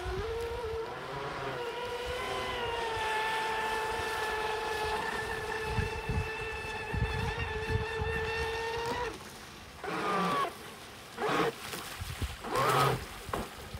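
Pro Boat RC speedboat running at speed, its motor giving a steady whine. The whine cuts off about nine seconds in, followed by a few short blips.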